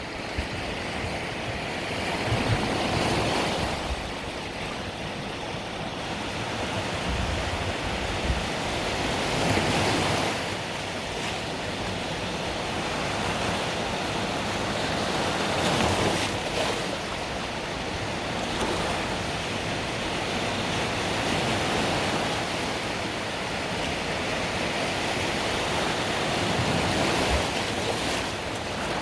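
Mediterranean waves breaking and washing onto the shore, the surf swelling and easing every few seconds, with some wind rumble on the microphone.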